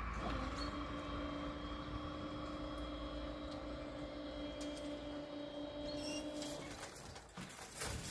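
Electric drive motors of level-crossing full barriers humming steadily as the barrier booms lift, stopping about six and a half seconds in. A few knocks follow near the end as the booms reach the upright position.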